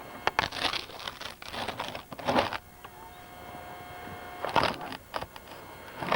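Footsteps crunching through deep snow, a cluster of irregular crunches in the first two and a half seconds and a few more about four and a half seconds in. A faint steady whine sits between the two groups of crunches.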